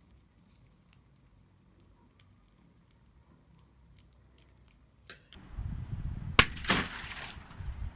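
Faint scattered clicks, then about five and a half seconds in a low rumbling handling noise begins and a balloon bursts with one sharp, loud bang, followed by a brief rush of noise.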